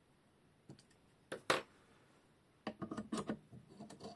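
Metal clicks and knocks from the steel clamp rod and clamps of a knife-sharpening jig being handled and set in place. One sharp knock comes about a second and a half in, then a quick run of clicks about a second later.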